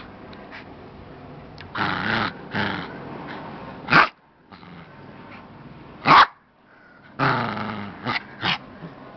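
Small dog growling in short bursts while playing with and chewing a stuffed bear toy. Two sharp, loud sounds stand out about four and six seconds in.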